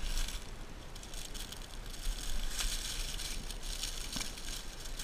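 Dry leaf litter rustling and crunching in irregular bursts as someone moves through it, loudest in the middle.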